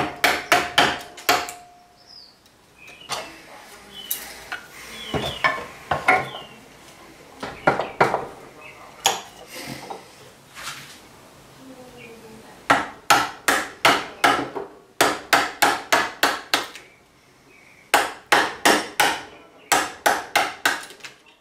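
A chisel struck with a mallet, chopping into white oak. It goes in quick runs of sharp taps, about four a second, with a looser stretch of irregular knocks in the middle.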